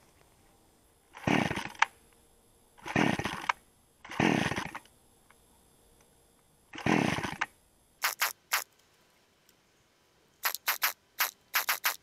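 Small red two-stroke chainsaw being pull-started: four pulls of the starter cord, each a short whirr of the engine turning over without catching. Near the end comes a quick series of short, sharp, high-pitched sounds.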